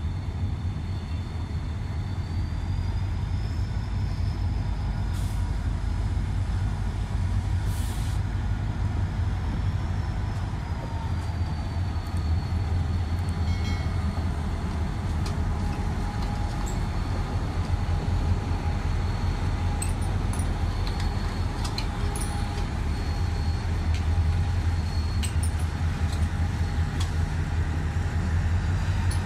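Diesel-electric locomotive pulling a passenger train out of a station at low speed: its diesel engine runs with a steady deep rumble as it passes close by, followed by the coaches rolling past, with scattered light clicks in the second half.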